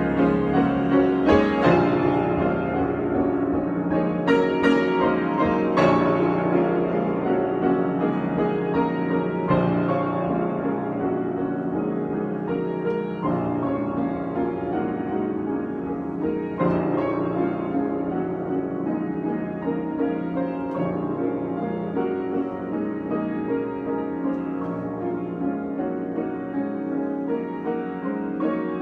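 Solo piano improvisation: slow chords struck every few seconds and left to ring, easing a little in loudness toward the end.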